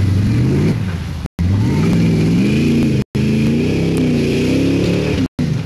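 Lifted pickup truck's engine revving hard as it churns through a mud pit, its pitch climbing and falling with the throttle. The sound cuts out to silence briefly three times.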